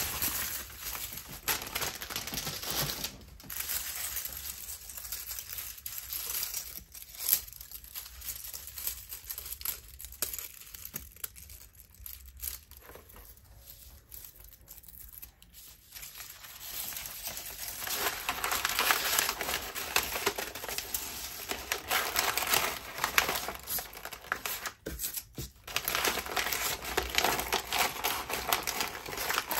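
Hands rustling and crinkling packaging: first a clear plastic bag of dried spray roses, then sheets of kraft paper being handled and rolled into a cone. The crackle thins out in the middle and is louder and busier in the last third.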